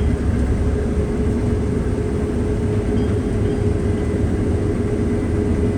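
Combine harvester running steadily while cutting wheat: a constant low rumble with a steady whine above it.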